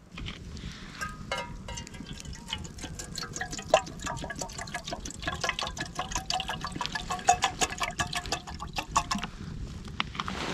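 Wood campfire crackling, with a dense run of sharp pops and one loud pop about four seconds in.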